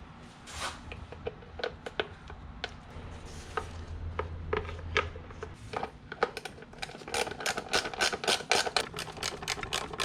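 Hand work on engine parts: irregular light clicks and knocks of tools and metal parts, turning into a quick run of scraping strokes over the last three seconds, typical of scrubbing a part clean.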